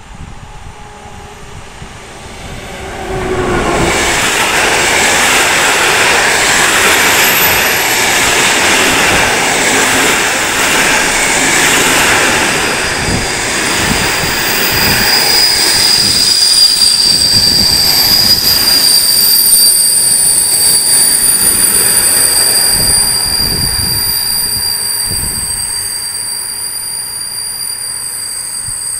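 Electric locomotive and a long rake of passenger coaches passing close along a station platform, rumbling and clattering over the rails. The sound swells sharply about three seconds in, a steady high-pitched wheel squeal joins about halfway through, and it fades as the last coaches go by.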